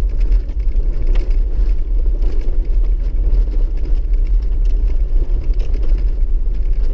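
Toyota Land Cruiser HDJ80 turbo-diesel straight-six running at low speed, heard inside the cab as a steady deep rumble. Scattered knocks and rattles come from the body and suspension over a rough, stony track.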